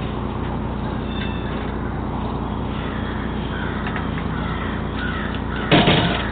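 Steady hiss and electrical hum with faint bird chirps, then one loud, short animal call near the end that fades over about half a second.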